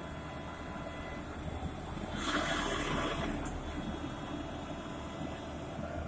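Horizontal directional drilling rig running steadily, with a rush of water from the drill head about two seconds in that lasts about a second.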